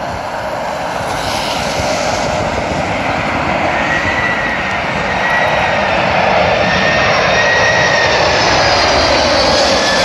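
Boeing 747-400 freighter's jet engines on landing approach: a rush of engine noise growing steadily louder, with high whining tones in it that dip slightly in pitch near the end.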